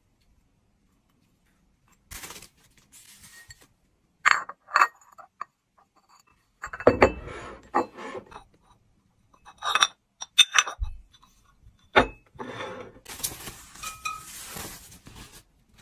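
Ceramic tableware clinking: a speckled mug and saucer knocked and set down in a series of sharp clinks. Near the end comes a rustle of tissue wrapping paper as a ceramic bowl is unwrapped.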